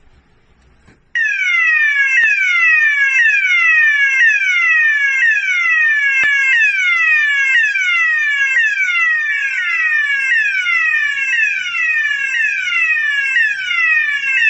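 24-volt fire alarm sounder strobe's electronic sounder switching on about a second in and sounding loudly: a rapidly repeating tone that sweeps downward in pitch, over and over.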